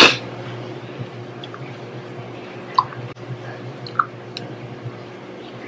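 A sharp breath at the start, then a few faint wet mouth clicks and lip smacks over a steady low hum, from a person reacting to the burn of hot chilies she has just eaten.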